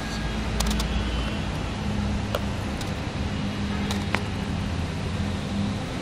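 Steady low rumble of a motor vehicle's engine running, with a faint hum and a few brief faint clicks.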